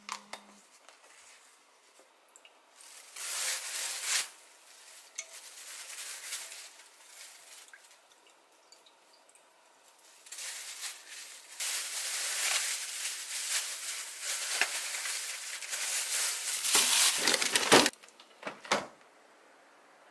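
Kitchen food-prep sounds: a short knock of glassware at the start, a brief burst of crackling around three seconds in, then a long stretch of loud crackling from about ten seconds to near the end.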